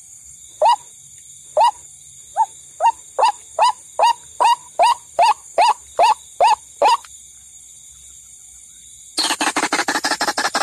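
White-breasted waterhen calls: short notes that slide downward, about a second apart at first, then quickening to two or three a second before stopping about seven seconds in. Near the end, a fast, dense run of calls begins.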